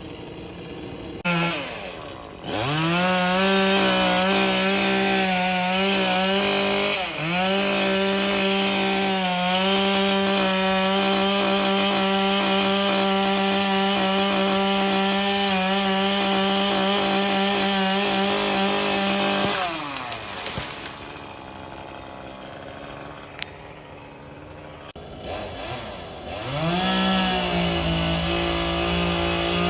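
Gas-powered two-stroke cutting tool engine revving up to full throttle and held there, with a brief dip about seven seconds in. It drops off about two-thirds of the way through, then revs up again near the end.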